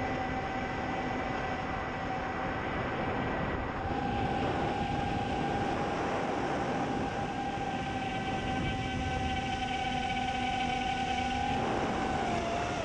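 FPV racing quadcopter's brushless motors and propellers whining at a steady pitch, with air rushing over the GoPro's microphone on the quad. The whine steps up slightly and grows louder about four seconds in, then drops in pitch near the end as throttle comes off.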